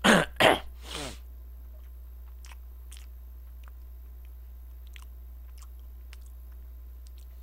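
A man eating a hotteok close to a microphone: three short, loud vocal sounds in the first second, then soft, scattered clicks of chewing.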